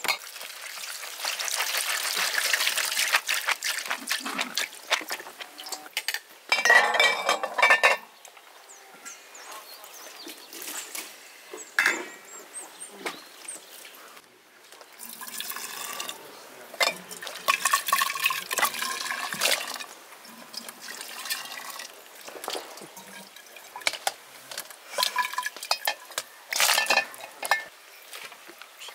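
Liquid poured and splashing in several stretches, with short knocks and clinks from a metal pot, its lid and glass bottles being handled.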